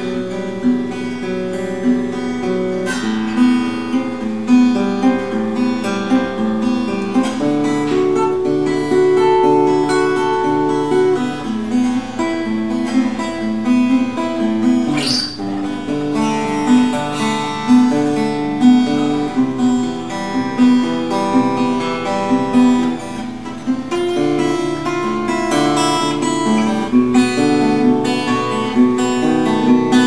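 Seagull Entourage Grand parlor acoustic guitar with a solid cedar top and wild cherry back and sides, played fingerstyle: a continuous run of picked notes and chords.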